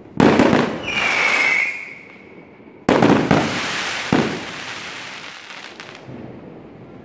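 Aerial fireworks bursting overhead: four sharp bangs over about four seconds, each dying away slowly. A high steady tone rings for about a second after the second bang.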